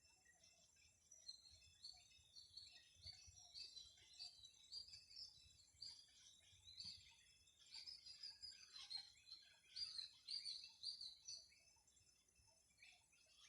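Faint birdsong: many quick, high chirps in rapid runs, busiest from about eight to eleven seconds in.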